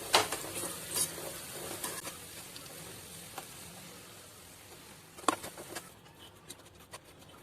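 Chopped vegetables frying in hot oil and ginger-garlic paste in a pan: a steady sizzle that fades gradually, with scattered sharp clicks and knocks as they are stirred.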